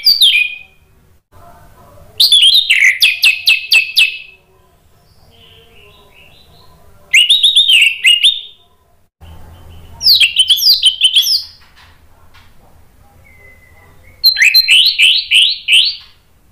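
Orange-headed thrush singing in short bursts of rapid, repeated whistled notes that slide downward, about five bursts with pauses of a second or more between them.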